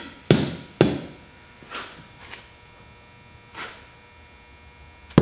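A mallet and pry bar knocking while a tire bead is worked over a beadlock wheel's lip: two sharp knocks in the first second, a few fainter taps in the middle, and another sharp knock at the very end.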